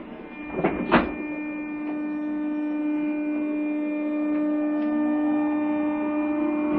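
JR East 201 series electric train heard from inside: two knocks about a second in, typical of the doors shutting, then a steady electrical hum with several higher tones ringing over it. Near the end the tones begin to rise as the train starts to pull away.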